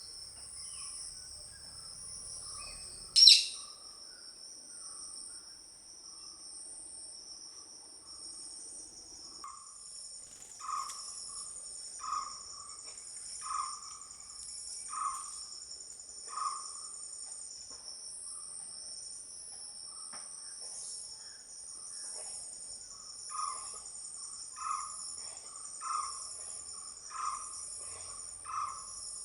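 Crickets chirring steadily in high, pulsing trills, while a bird repeats a short single-note call about every second and a half, in one run through the middle and another near the end. A sharp click sounds about three seconds in.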